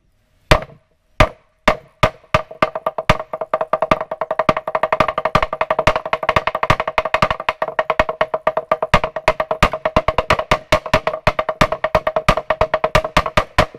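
Fijian lali, a hollowed-log slit drum, beaten with wooden sticks. It opens with four slow, widely spaced strikes, then breaks into a fast, steady rhythm of ringing wooden beats from about two seconds in.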